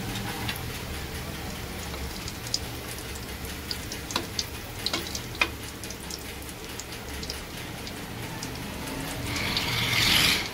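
Breadcrumb-coated chicken drumsticks deep-frying in hot oil in a steel kadai: a steady sizzle with scattered sharp pops and crackles. A louder hiss swells over the last second.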